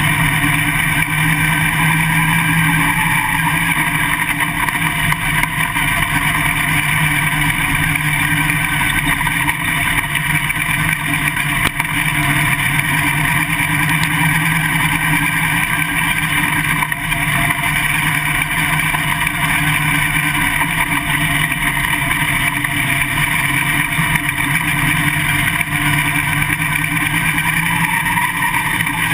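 Winged late model race car engine running steadily at low speed, with no revving, heard from inside the cockpit.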